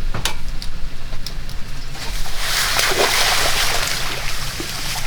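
A boat's motor running low and steady, with a splash of water starting about two seconds in and lasting over a second.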